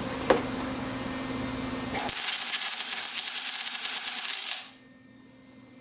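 Spool-gun MIG welding arc striking on aluminum for a tack weld: a loud crackling hiss that starts about two seconds in, lasts about two and a half seconds and cuts off abruptly. A single sharp click comes just before, over a steady low hum.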